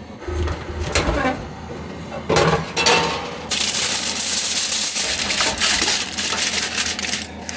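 Food being put into a dish: a few clinks and knocks of dishware, then a steady rustling hiss for about four seconds that stops suddenly near the end.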